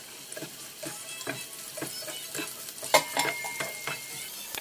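Chopped onions sizzling in hot oil in a frying pan while a slotted plastic spatula stirs them. The spatula scrapes and taps against the pan two or three times a second, with one sharper knock about three seconds in.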